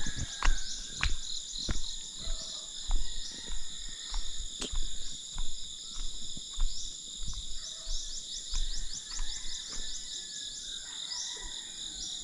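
Steady outdoor chorus of calling insects, with rapid ticking trills that come and go over it, and scattered knocks and low thumps.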